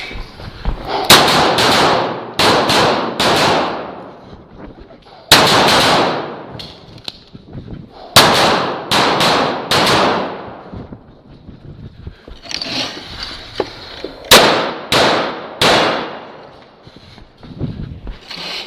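CZ Shadow 2 pistol fired rapidly in quick pairs and short strings of shots, with pauses of a second or two between groups, each shot echoing briefly: a competitor shooting an IPSC stage, engaging targets in double taps.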